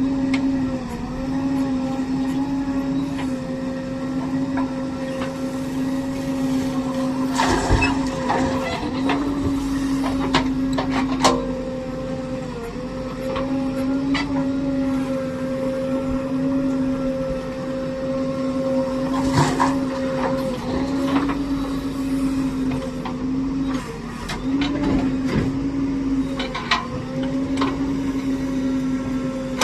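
Backhoe loader's diesel engine running steadily, its pitch dipping briefly a few times as it takes load. Scattered sharp metal knocks and clanks of the working machine come over the engine, the loudest about a quarter of the way in and again about two-thirds of the way through.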